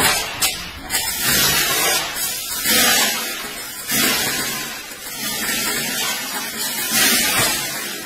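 Grain rushing and rattling as shovelfuls are thrown into the intake of a running grain mill, a hissing rush that swells again every second or so.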